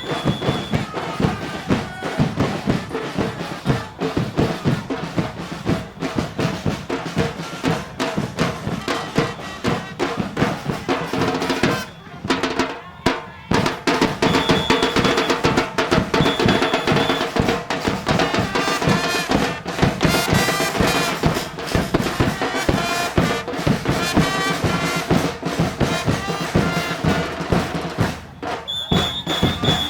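A murga percussion section (bass drum and snare drum) plays a fast carnival beat with a melody over it. It breaks off briefly about twelve seconds in, then comes back.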